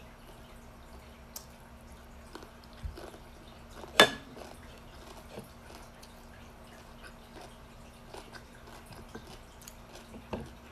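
A person eating with the hands: soft chewing with small clicks and lip smacks, and one sharp clink about four seconds in, the loudest sound. A faint steady hum lies underneath.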